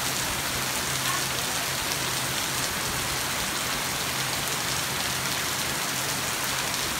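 Heavy rain falling steadily, an even dense hiss of drops that holds at one level throughout.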